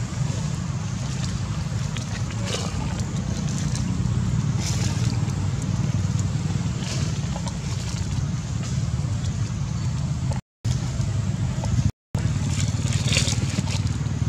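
A steady low engine-like rumble in the background, with scattered crackles of dry leaves as the macaques shift on the leaf litter. The sound cuts out briefly twice near the end.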